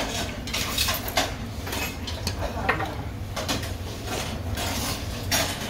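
Close-up eating noises, short noisy mouth sounds about twice a second, with one or two clicks of steel chopsticks, over a low steady hum.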